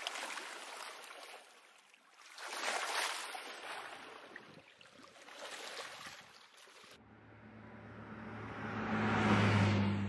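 Small lake waves washing against shoreline rocks, swelling and ebbing. About seven seconds in, a vehicle passing on a road takes over, with a low hum that grows louder to a peak near the end and then starts to fade.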